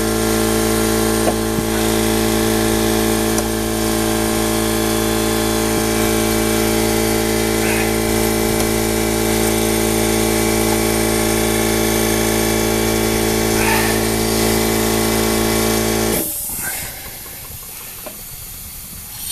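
Air compressor motor and pump running steadily with a constant hum, then cutting off abruptly near the end, leaving a hiss of air.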